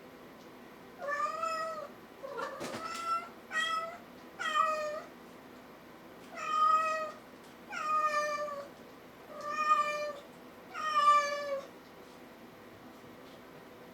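Kitten meowing over and over: about eight high, clear meows, each under a second long, coming every second or so, then stopping.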